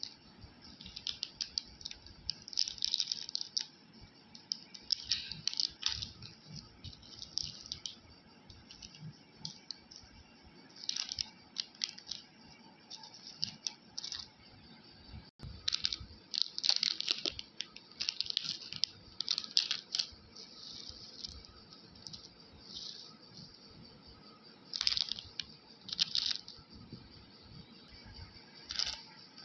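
Candy packets being handled and opened: irregular bursts of crinkling plastic wrapper and small sweets rattling, in clusters every second or two.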